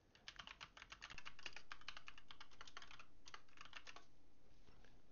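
Typing on a computer keyboard: a quick run of keystrokes, a short pause about three seconds in, then a last brief flurry of keys.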